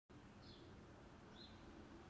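Near silence: faint room noise with a short, high, faint chirp repeating about once a second, like a small bird calling.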